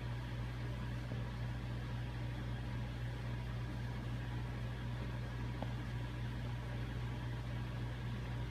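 Vintage Dockside Sales Corp. ceiling fan running on medium speed: a steady low motor hum with an even rush of air from the blades.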